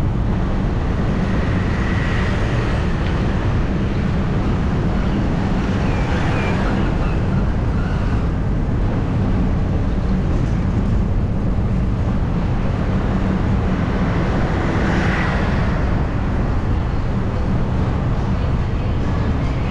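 Steady low rumble of wind and road noise from a camera riding on a moving vehicle, with faint higher sounds swelling briefly about two seconds in and again near fifteen seconds.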